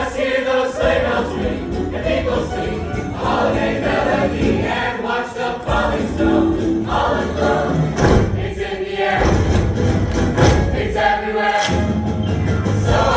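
Show choir singing in parts over instrumental accompaniment with a steady beat.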